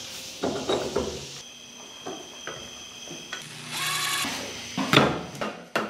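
A run of shop tool sounds on a Dana 60 axle: clicking and clattering metal tool work, then a Milwaukee Fuel cordless impact tool running for about a second, roughly four seconds in, and a couple of sharp knocks near the end.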